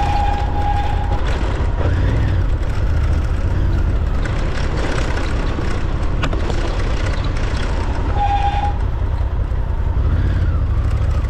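Off-road vehicle engine running steadily while riding a dirt trail, with wind and rumble buffeting the microphone. A brief steady beep sounds at the start and again near the end.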